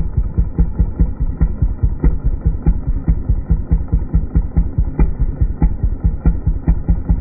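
A small engine idling with a steady, lumpy beat of about six thumps a second, sounding dull and muffled.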